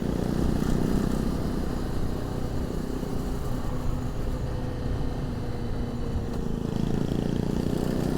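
Honda CRF250 Rally's single-cylinder engine running steadily on the move, heard through a lavalier mic inside the rider's crash helmet.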